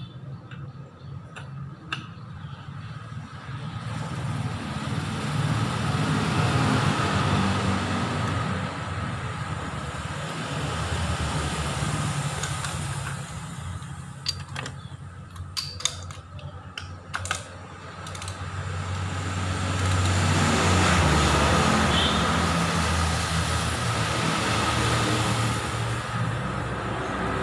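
Yamaha R25's parallel-twin engine running, its low rumble rising and falling slowly in loudness, with a few sharp clicks partway through.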